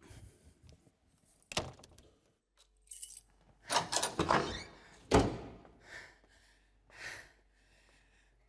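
Keys jingling briefly about three seconds in, among several knocks and clatters of a door being opened and handled. The loudest sound is a sharp thud about five seconds in.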